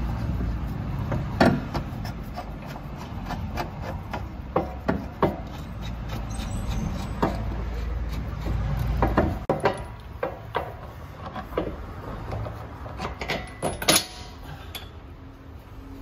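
Irregular knocks and clicks of hand tools on metal car parts, some sharper and louder than others, over a low rumble.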